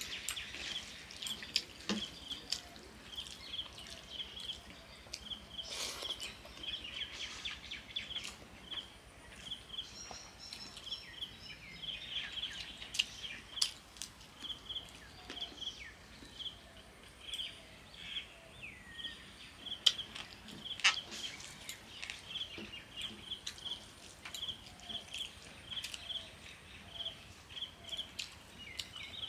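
Eating by hand from a steel plate: fingers mixing wet, water-soaked rice, chewing, and scattered sharp clicks. Throughout, a high chirp repeats a couple of times a second in the background.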